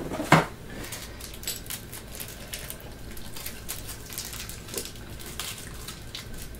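A single sharp thump about a third of a second in, then light irregular clicking and crinkling of small plastic packaging being handled and opened.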